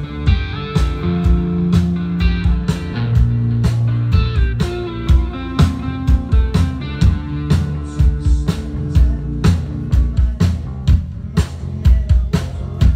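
A rock band playing live at a sound check: electric guitar and bass notes over a drum-kit beat, the drum hits growing busier in the second half.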